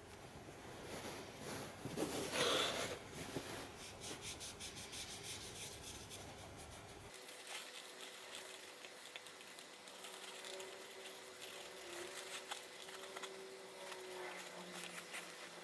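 Cloth rubbing and wiping over the leather shell of a WW1 M1915 pickelhaube, with small scuffs as the helmet is handled and turned. The rubbing is loudest about two seconds in.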